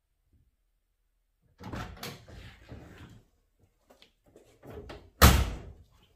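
The driver's door of a 1964 Oldsmobile Dynamic 88 two-door hardtop slams shut once, sharply, about five seconds in. Softer clunks and rustling come before it.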